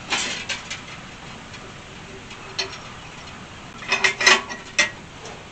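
Scattered small metal clicks and clinks from a hand-held brake-line flaring tool being worked and handled, with a quick cluster of them about four seconds in.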